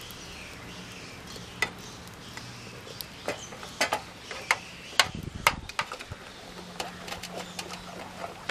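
Plastic spoon stirring flour into a thick batter in a steel bowl, with scattered sharp clicks and taps of the spoon against the bowl, most of them in the middle of the stretch.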